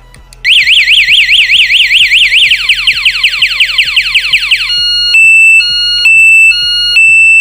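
Vehicle alarm siren cycling through its tones, starting suddenly. It warbles up and down about five times a second, then changes to quick falling chirps, then switches to a two-tone hi-lo pattern roughly every half second.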